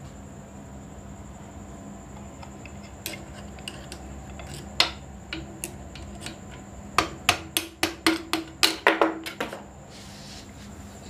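Hammer tapping a metal drift rod against a sewing machine's needle-bar bushing to drive it out of the head. A few scattered taps come first, then a quick run of about a dozen sharp metal-on-metal knocks, each with a short ring, in the last few seconds.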